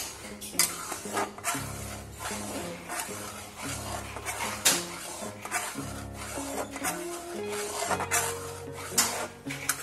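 Flat steel spatula stirring and scraping a thick, wet chhena-and-jaggery mixture around a metal kadai, with irregular scrapes and knocks against the pan.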